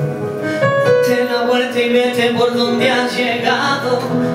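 Live song accompaniment on a Nord Stage keyboard in a piano sound, held chords under a man's singing voice.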